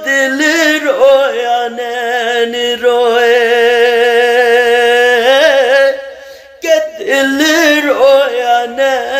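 A man singing a Punjabi devotional shabad, drawing out long held notes with vibrato and melodic turns; the line breaks off briefly about six seconds in and then resumes.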